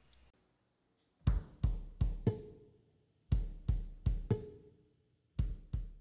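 A short drum beat: near silence for about a second, then three repeated groups of about four punchy drum hits, each with a deep bass thump and a short ringing tone, the groups about two seconds apart.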